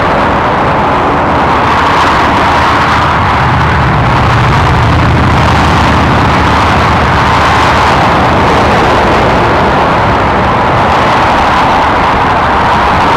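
Dense motorway traffic of cars and lorries: a loud, steady rush of tyre noise, with a deeper engine hum from a passing lorry swelling about four to six seconds in.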